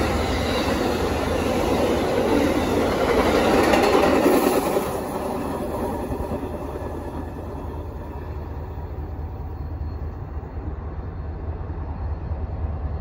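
Amtrak passenger train rolling past, its wheels clattering on the rails. The noise fades about five seconds in as the train pulls away, leaving the steady low rumble of diesel locomotives.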